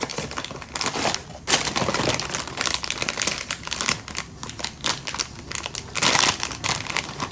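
Blind-box packaging being crinkled and torn open by hand, an irregular stream of crackling with louder rips.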